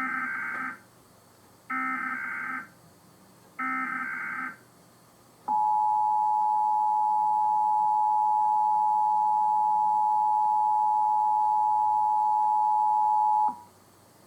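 Emergency Alert System national test activation: three short bursts of warbling digital header data, then the EAS two-tone attention signal, two steady tones sounding together for about eight seconds before cutting off.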